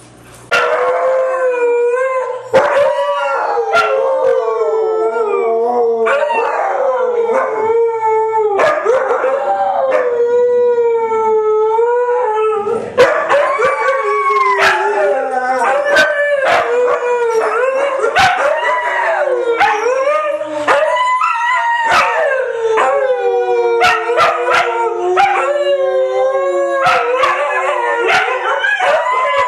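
Huskies howling together: long, wavering howls from several dogs at once, overlapping at different pitches.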